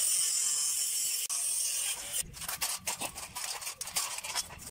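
Steel grill bars being handled: a steady hiss for the first couple of seconds, then from about halfway a run of irregular clicks and knocks of metal.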